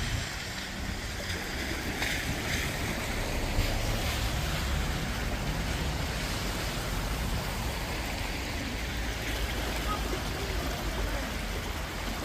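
A swollen river in flood, running high just short of overflowing its banks: a steady rush of fast water.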